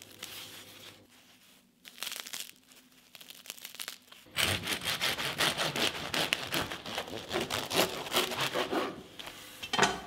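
Knife sawing back and forth through a crusty, freshly baked baguette on a wooden board, the crisp crust crackling as it cuts; the sawing starts about four seconds in and stops just before the end. Before it there are faint crackles from the crust as the loaves are handled.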